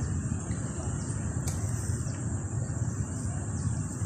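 Outdoor background: a steady low rumble of traffic under a constant high insect drone, with one faint click about a second and a half in.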